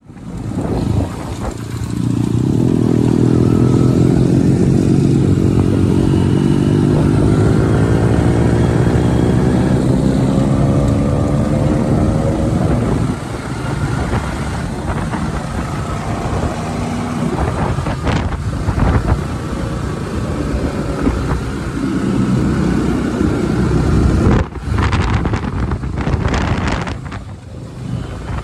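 Motorcycle engine running while riding, its pitch climbing steadily for about ten seconds as it accelerates, then dropping and running steadier. Several sharp knocks come near the end.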